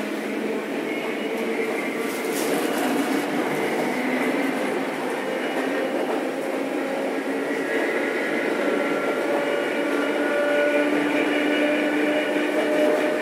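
Randen Mobo 21 retro tram heard from inside the car: a steady running rumble with several steady whining tones, getting a little louder toward the end.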